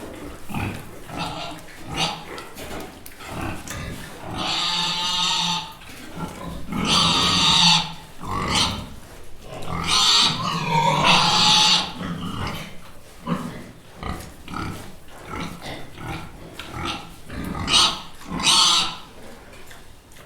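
Pigs grunting in short, repeated grunts, broken by four loud, shrill squeals of a second or two each.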